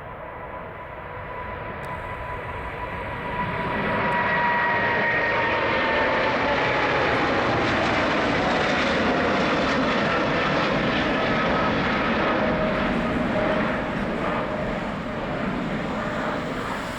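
Boeing 777-300ER's GE90 turbofan jets at takeoff power, a loud rushing noise that builds over the first few seconds and holds. A high engine whine slides steadily down in pitch as the airliner goes past, and the sound eases off near the end.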